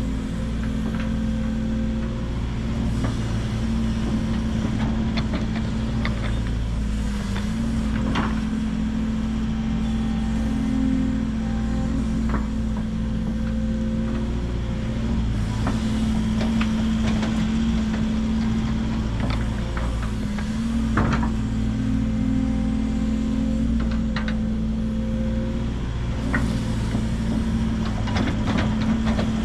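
Link-Belt 145 X3 hydraulic excavator's diesel engine running steadily under working load, its pitch shifting a little as it digs and loads soil into a dump truck, with occasional sharp knocks.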